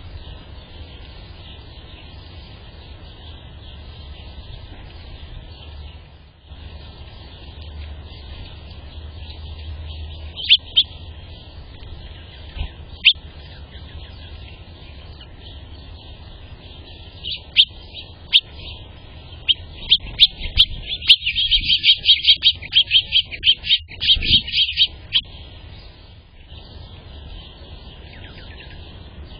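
Small birds chirping: a few scattered sharp chirps, then a fast run of chirps lasting about five seconds in the second half, over a steady high hiss.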